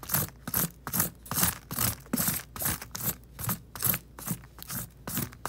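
A spoon scraping the spines off a nopal cactus pad in quick repeated strokes, about two and a half a second, each a short scrape.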